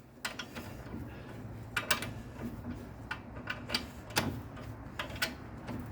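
Hand tools clicking and knocking at the Corolla's front strut bolts: a scattered, irregular series of short sharp clicks, with one louder knock a little past four seconds in.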